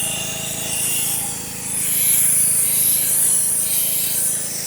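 Gas pressure washer engine running steadily under the hiss of a high-pressure water jet hitting concrete. The hiss swells and fades as the spray sweeps back and forth.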